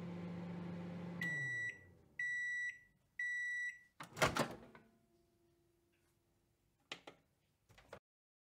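Microwave oven running with a steady hum that winds down about a second in, then three beeps, each about half a second long, signalling the end of the cooking cycle. The door then pops open with a loud clatter, followed by two short clicks.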